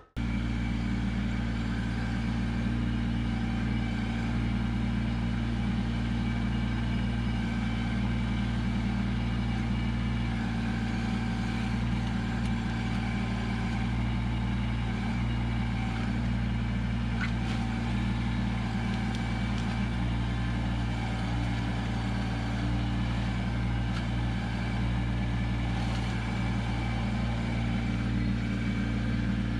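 Kubota LX2610 compact tractor's three-cylinder diesel engine running at a steady, even speed while the front-loader grapple picks up and lifts three logs.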